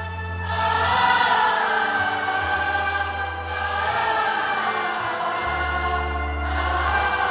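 Church choir singing a Christmas hymn over sustained low bass notes that change every couple of seconds.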